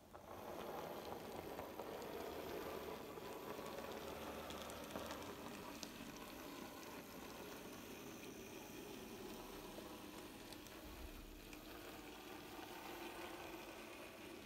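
009 gauge model train running along the track: a steady rushing whir from its small motor and wheels, with a few faint clicks.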